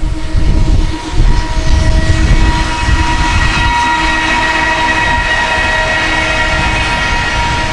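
Electric-locomotive-hauled freight train passing, with a steady high ringing whine that grows about a second in over the rumble of the train. Strong wind buffets the microphone, loudest in the first second.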